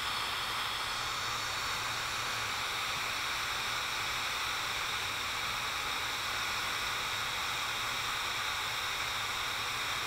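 Laifen Swift high-speed hair dryer running steadily: an even hiss of blown air with a few faint high tones in it.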